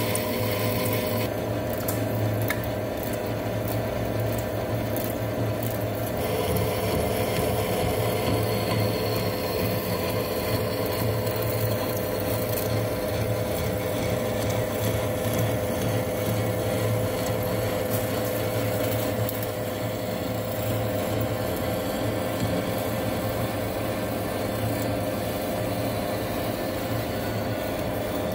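Centre lathe turning a large steel shaft, the cutting tool running a steady cut over the motor and gearbox hum.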